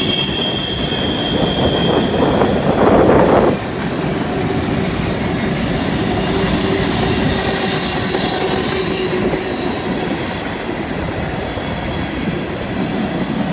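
CN freight train's cars rolling through a curve, wheels squealing against the rail in long high-pitched tones over a steady rumble and some clickety-clack of wheels on rail joints. The rumble swells louder for about a second and a half, about two seconds in.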